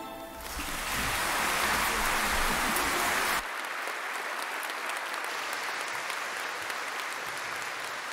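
Concert audience applauding at the end of a piece. The clapping starts about half a second in, drops abruptly to a lower level about three and a half seconds in, and then goes on steadily.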